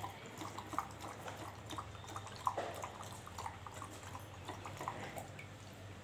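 Dog lapping water from a plastic bowl: a run of small, irregular wet laps and drips.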